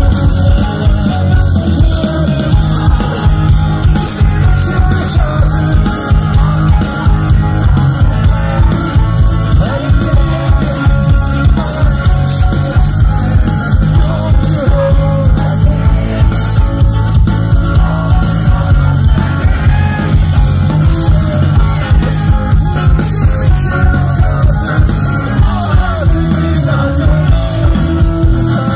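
Rock band playing live at full volume: electric guitars, bass, drums and keyboards under a steady beat, with a male lead singer singing over them.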